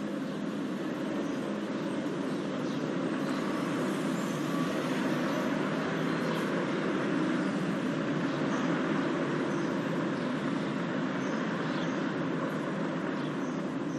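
Steady city street traffic noise: an even rumble of passing vehicles with no single event standing out.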